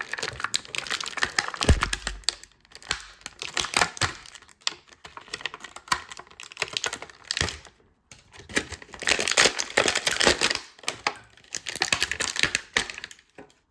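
Plastic toy packaging rustling, crinkling and clicking as an action figure's straps and accessories are handled and freed, with a knock about two seconds in.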